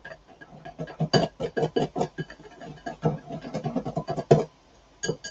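Wire balloon whisk beating milk into flour in a glass bowl, its wires clicking rapidly against the glass at about five strokes a second as the paste is whisked smooth. The clicking stops about four seconds in, then a few more taps follow near the end.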